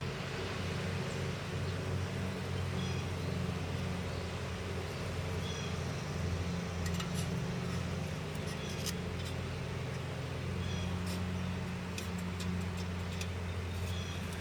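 Nissan Quest's 3.5-litre V6 idling with a steady low hum, with scattered light ticks and clicks from about halfway.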